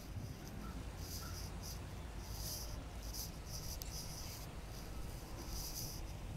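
Insects chirping in short, high-pitched pulses that repeat irregularly, over a low steady rumble.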